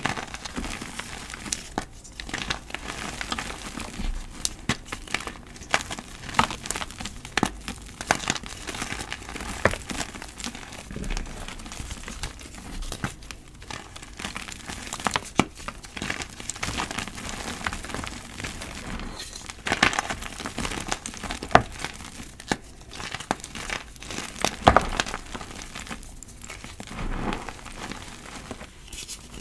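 Gym chalk blocks crushed and crumbled between the fingers into loose chalk powder: a dense, irregular crunching with frequent sharp cracks as pieces snap apart.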